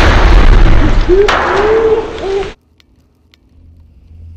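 Acetylene from calcium carbide exploding under a steel barrel: a loud blast that blows the barrel into the air, with a second sharp bang about a second in. The noise cuts off abruptly about two and a half seconds in, leaving a faint low hum.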